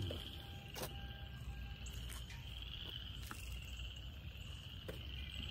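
A steady, high-pitched, pulsing chorus of small frogs calling from the woods, with low wind rumble on the microphone and a few faint clicks.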